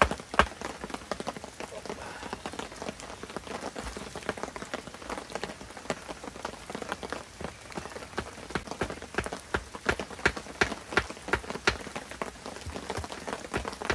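Wooden stakes being hammered into the ground: a run of sharp knocks, coming about twice a second and loudest in the second half.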